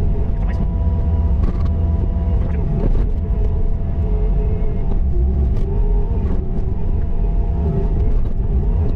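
Bobcat T595 skid steer's diesel engine running steadily, a loud low rumble with a faint steady whine and a few short knocks.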